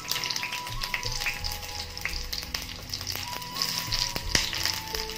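Onion pieces sizzling and crackling in hot oil in a small pan as they are dropped in, with many sharp spits, over background music.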